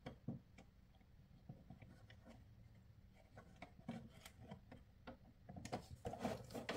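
Gloved hands handling and pressing together the plastic housing and front bezel of a Mercedes W164 instrument cluster: faint scattered clicks and rubs of plastic, which become busier and louder near the end.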